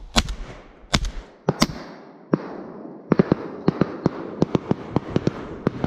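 Three 12-gauge shotgun shots in quick succession, fired at a passing flock of wood pigeons. After them comes a rapid string of shorter cracks and pops, several a second, over a hiss.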